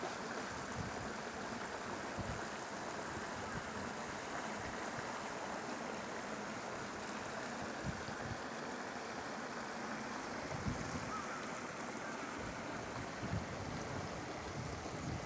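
Steady wind noise rushing across the microphone, with short low buffeting thumps now and then.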